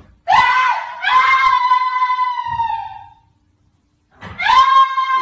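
A person screaming, high-pitched and held: one long scream with a short break near its start, about a second of quiet, then a second scream near the end.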